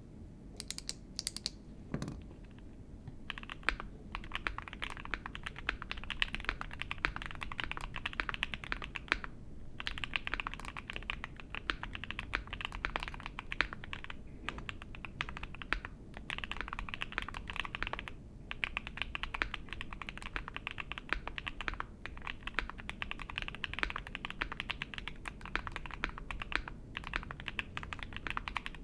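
Fast typing on an Ai03 Vega 65% gasket-mount mechanical keyboard with lubed Alpaca V2 linear switches on a polycarbonate plate and GMK keycaps. A few single key presses come first, then continuous rapid keystrokes broken by brief pauses.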